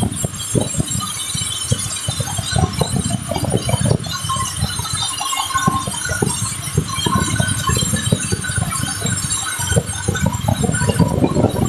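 Sawmill machinery running loudly with a dense, irregular clatter of knocks and rattles over a steady hiss.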